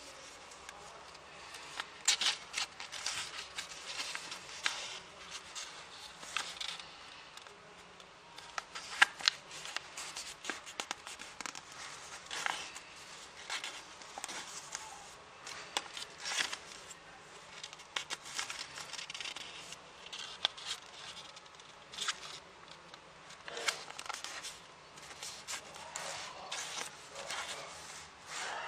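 A square sheet of origami paper being folded by hand: irregular rustling and crinkling, with sharper crease snaps as the folds are pressed down, the loudest about nine seconds in.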